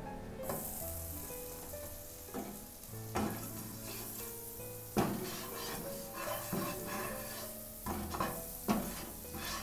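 Butter melting and sizzling in a hot nonstick frying pan, the hiss starting about half a second in. A spatula scrapes and knocks against the pan several times as it pushes the butter around.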